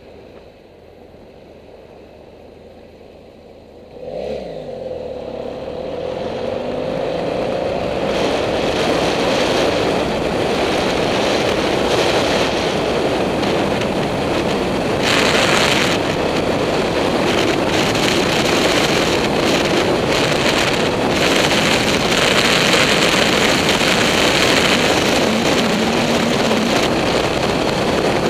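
BMW F800GS parallel-twin motorcycle engine idling quietly, then revving up as the bike pulls away about four seconds in. After that, steady wind rush on the helmet camera's microphone over the engine at road speed.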